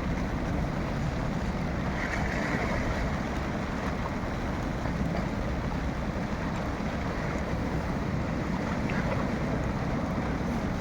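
Steady wind buffeting the microphone over a constant wash of water.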